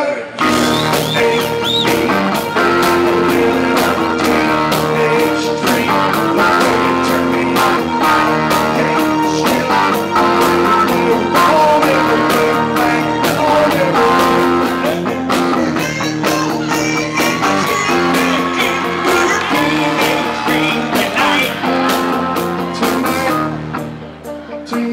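Live rock band playing loud, with electric guitars and male voices singing along.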